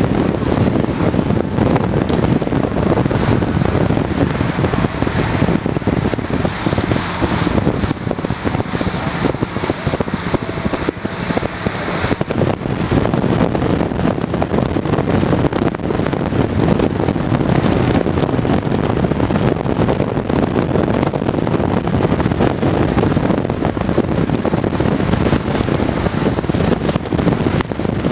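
Wind buffeting the microphone on the deck of a moving lake ferry, over the boat's engine running steadily.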